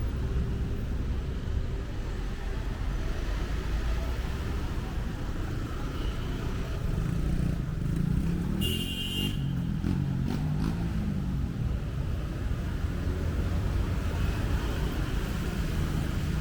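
City street traffic with a steady low rumble of engines and tyres. About seven seconds in a vehicle passes close, its engine hum swelling, with a brief high-pitched squeal or beep near the middle.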